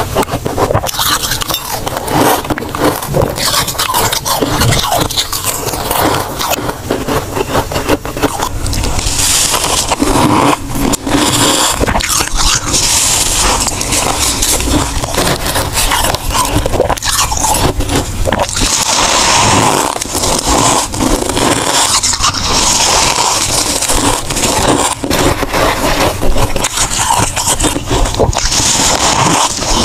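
Thick freezer frost being scraped out by hand and bitten, a dense, loud run of crisp crunching and scraping.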